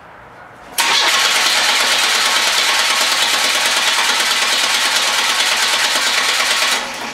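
Car engine cranked over by the starter motor for about six seconds without firing. The fuel pump relay is pulled and the throttle held wide open for a dry compression test. The cranking starts abruptly about a second in and stops near the end.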